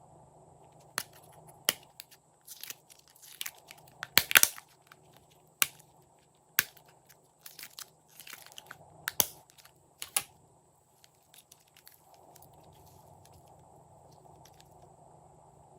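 Glossy slime being worked by hand, giving an irregular run of sharp clicks, pops and crackles, loudest about four seconds in. They stop after about ten seconds.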